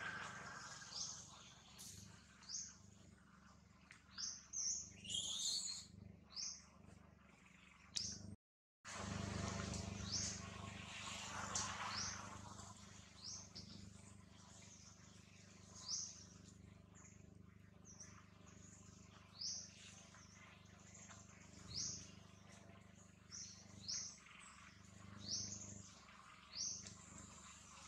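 A bird chirping over and over, short high notes about once a second, over a faint steady outdoor background. The sound cuts out completely for a moment about eight seconds in.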